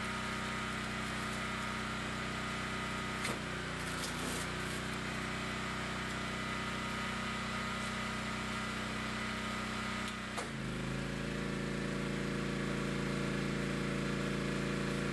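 Shrink tunnel running, its heater blower and conveyor motor giving a steady multi-tone machine hum. About ten seconds in the hum shifts to a deeper, slightly louder tone, and a few light clicks of handling come early on.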